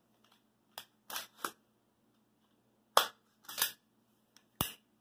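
An empty AR-15 rifle's action worked by hand: the bolt carrier and charging handle give a series of sharp metal clacks, loudest about three seconds in, as the bolt hold-open / bolt release is tested for the fault the owner is chasing.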